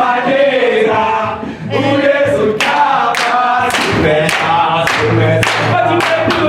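Recorded music with a choir singing over a regular beat.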